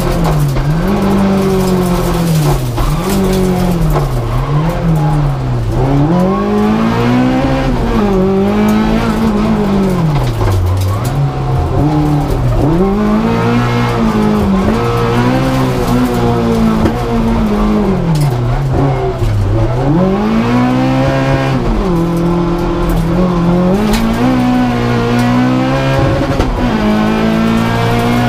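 Suzuki G13B 1.3-litre four-cylinder race engine with individual throttle bodies, heard from inside the car's cabin under hard driving. Its revs repeatedly drop sharply and climb again as the car brakes, shifts and accelerates through a series of bends.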